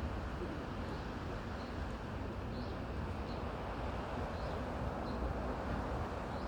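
Steady wind through forest trees with a low rumble. Over it a small bird gives short high chirps in pairs, a higher note and then a lower one, about every two seconds.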